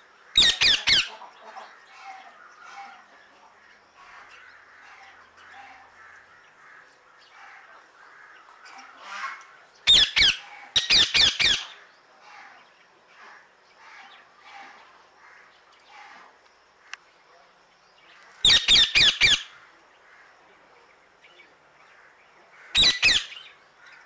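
Male Indian ringneck parrot (rose-ringed parakeet) calling: four bouts of shrill screeches, each a fast run of three or four calls, with faint chirping between the bouts.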